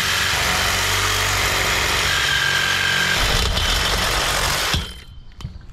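Power tool cutting through the old electrical service riser, running steadily and then stopping about five seconds in.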